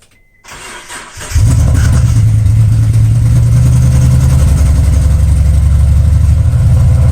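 Mitsubishi 3000GT's V6 cranked on the starter and catching about a second in, then idling steadily and loudly with one muffler and much of the rear exhaust removed.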